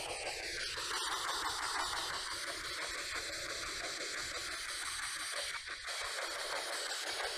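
Handheld ghost box (spirit box) sweeping radio stations, giving a steady hiss of static with faint, broken tones.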